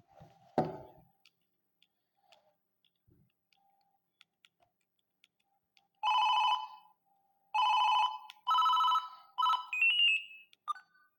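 Siemens A52 mobile phone ringtone. A knock sounds just after the start, then a few faint clicks, and from about six seconds in the phone's speaker plays a buzzy beeping melody of short and longer notes.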